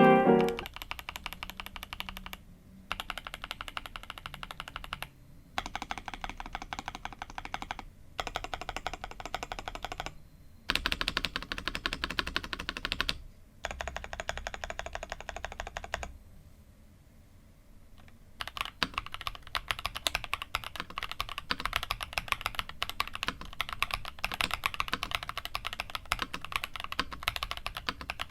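Typing on the Darmoshark TOP75 mechanical keyboard: rapid key clicks in several bursts of two to three seconds with short breaks between them. One burst about two-thirds of the way through the first half is louder. After a pause of about two seconds the typing runs on without a break.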